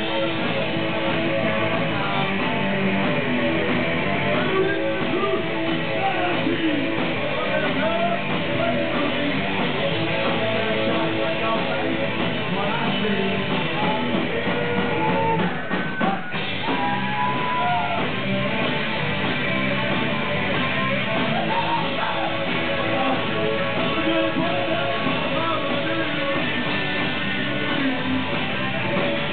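Punk rock band playing live: electric guitar, bass guitar and drum kit, with a singer's vocals over them. The sound drops briefly about halfway through, then the band plays on.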